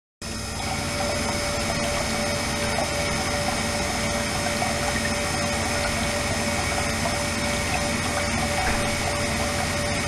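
Flow-through ultrasonic cleaning tank running, its liquid circulation pump and the ultrasonic bath making a steady machine hum with a mid-pitched whine, mixed with the rush of water jetting from a nozzle into the tank. It starts abruptly just after the start and then holds steady.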